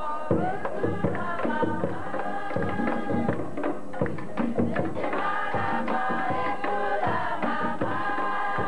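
Cook Islands drum-dance music: a group of voices singing together over frequent sharp drum strikes.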